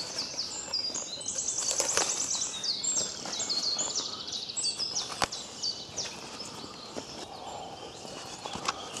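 Songbirds singing outdoors: many quick, high sweeping notes, with a fast buzzy trill near the start, over a steady background hiss. A few sharp clicks break in, the loudest about five seconds in.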